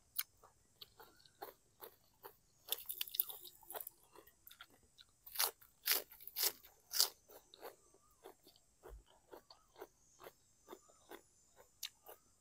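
Close-up crunching and chewing of crisp raw vegetables eaten with a spicy noodle salad: a string of sharp, crisp bites, loudest in clusters about three seconds and six seconds in.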